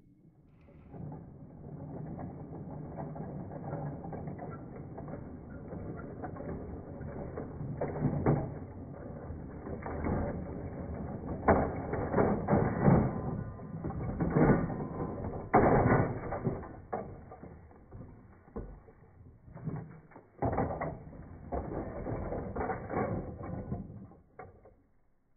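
A plastic G-scale toy train derailing: its drive runs with a mechanical rattle as the cars are dragged off the track and tumble into a dirt pit. A run of loud knocks and clatters is heaviest in the middle.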